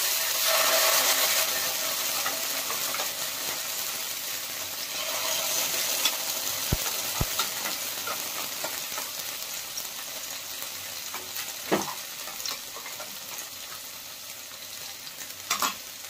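A wet ground spice paste sizzling in hot soybean oil in a frying pan, the sizzle dying down gradually as it settles in the oil. A few light knocks stand out over it.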